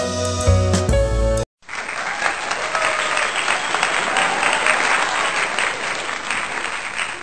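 Instrumental music that cuts off abruptly about a second and a half in, followed by the dense crackle of a crowd applauding, which fades near the end.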